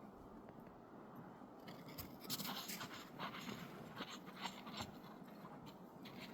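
Footsteps on a trail with scratchy crunching and rustling, irregular and several a second, busiest in the middle.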